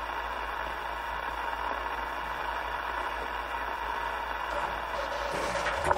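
A CB radio receiver tuned to 27.375 MHz giving a steady hiss of static on an open channel between transmissions, with a faint low hum underneath. The hiss swells slightly just before the end.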